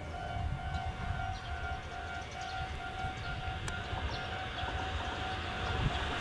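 Japanese railway level crossing warning signal ringing, a steady electronic two-tone bell repeating in short even strokes, as a train approaches with its rumble growing louder near the end.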